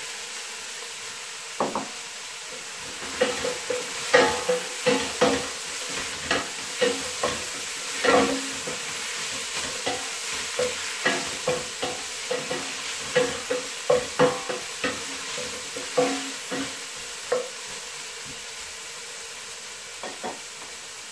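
Wooden spoon stirring chopped onion and red bell pepper in a stainless steel pot, knocking and scraping irregularly against the pot, over a steady sizzle of the vegetables frying in oil. The stirring stops about three-quarters of the way through, leaving only the sizzle.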